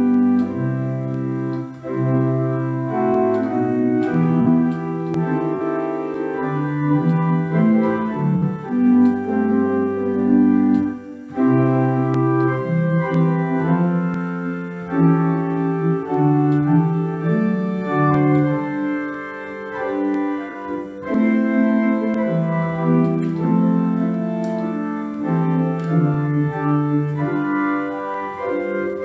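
Organ playing a hymn tune in held, slowly changing chords, with short breaks between phrases.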